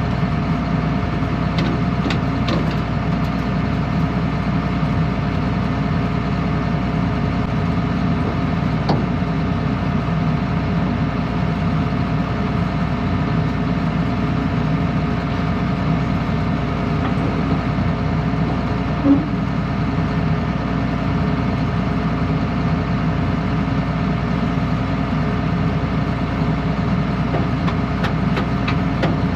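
A vehicle engine running steadily with no change in speed, and a single brief clunk about two-thirds of the way through.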